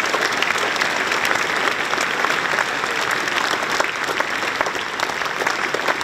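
A large crowd applauding: dense, steady clapping from many hands.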